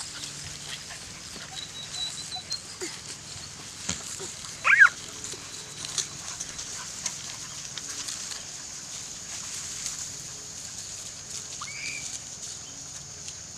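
Old English Sheepdog puppies at play, with one loud, short, high-pitched yelp just before five seconds in and a fainter yip near the end.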